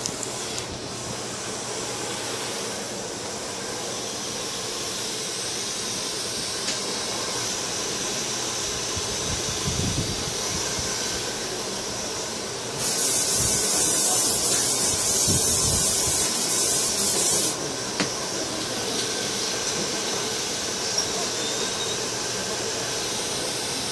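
A hair dryer blows steadily. Midway, hair setting spray is sprayed in one long hiss lasting about five seconds.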